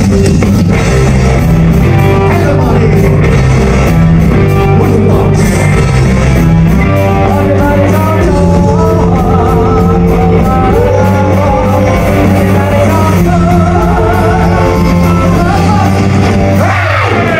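A live punk/new-wave rock band plays loud: electric guitars, bass and drums drive under sung vocals. The music breaks off near the end as the song finishes.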